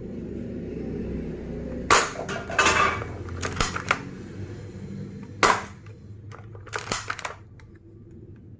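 Plastic toy gun clicking and clacking: several short clusters of sharp clicks, the loudest about two seconds in and again about five and a half seconds in.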